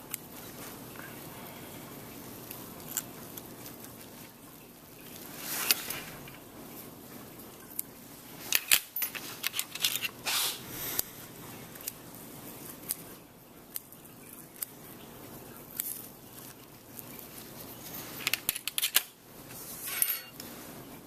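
Dissecting scissors snipping and steel instruments clicking against a stainless steel dissecting tray, in scattered short clicks and scrapes. They are busiest about nine seconds in and again near the end.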